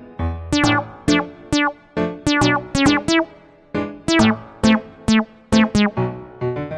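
Background music: a bouncy keyboard or synthesizer tune of short, sharp plucked notes, several a second.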